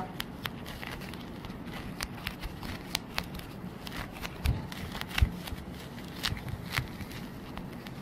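Hands picking and tearing at the top sheet of a disposable sanitary napkin, a plastic-like non-woven layer that is hard to tear. It gives soft rustling with many small scattered crackles and clicks, and a couple of dull thumps near the middle.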